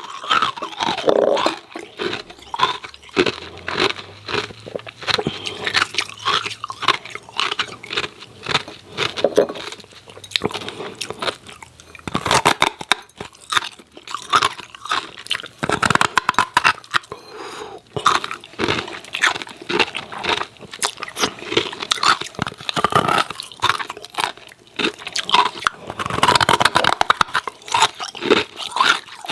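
Hard freezer ice cubes being bitten and chewed close to the microphone: dense, irregular crunching and cracking in quick succession, with no pause longer than a moment.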